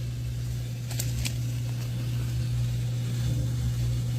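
A steady low hum, with two short sharp clicks about a second in.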